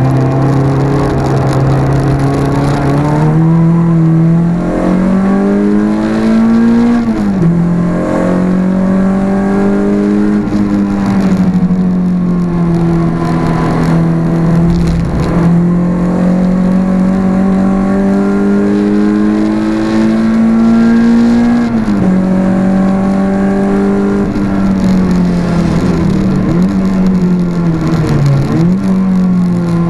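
Renault Clio 172's 2.0-litre four-cylinder engine heard from inside the cabin while driven hard on a circuit. The note climbs steadily under acceleration, drops sharply at upshifts about seven and twenty-one seconds in, and dips twice near the end as the car slows for a corner.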